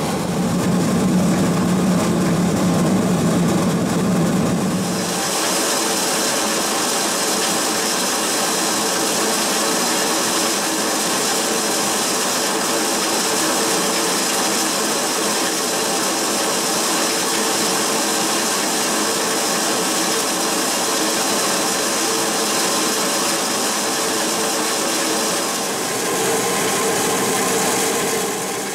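Remet GX-100 roller grain crusher running steadily as it crushes grain, a continuous mechanical machine noise. About five seconds in, the low hum drops away and a brighter, higher hiss takes over.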